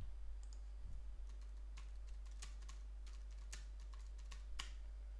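Faint computer keyboard typing: scattered key clicks at an irregular pace.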